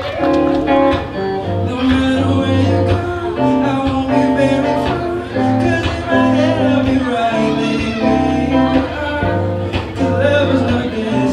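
Music: a song with a voice singing over electric guitar and a steady bass line.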